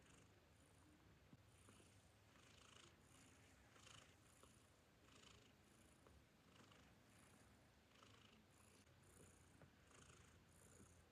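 Faint, steady cat purring during nursing, with soft breathy puffs about every half second to a second.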